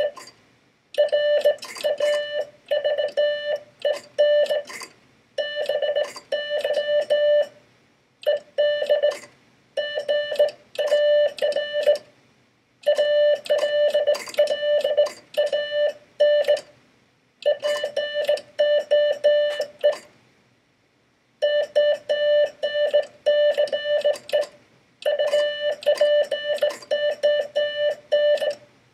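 Morse code sent by hand on a Vibroplex semi-automatic bug key: a steady tone near 600 Hz keyed on and off in quick dots and longer dashes, with the key's mechanical clicking under it. The code comes in runs of characters separated by pauses of about a second, spelling out the opening of Poe's poem 'The Raven'.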